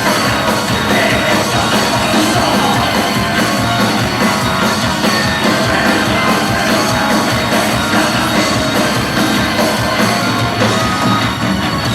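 Loud rock music with drums and electric guitars, playing steadily without a break.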